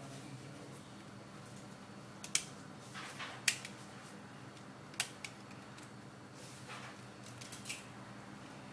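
Small sharp clicks and snaps, about seven of them at uneven intervals, from the parts and hand tools of a Nokia 6720 classic mobile phone being taken apart.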